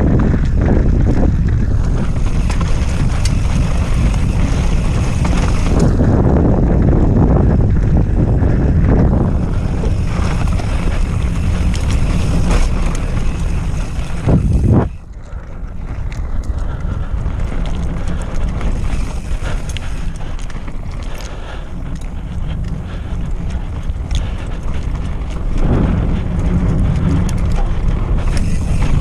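Wind rushing over the camera microphone, with the tyres and frame of an enduro mountain bike rolling and rattling over a dirt downhill trail. About halfway through there is a knock, then the noise drops sharply and builds back up.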